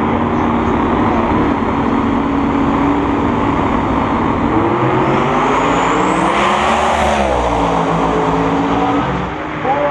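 Drag racing cars' engines running loud on the line, then launched at full throttle about halfway through: the engine note climbs for a couple of seconds, peaks, then drops as the cars pull away down the track.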